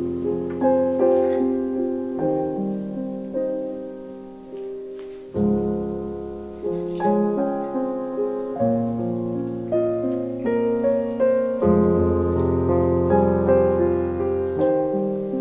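Background piano music: a gentle melody of struck notes over low bass notes that change about every three seconds.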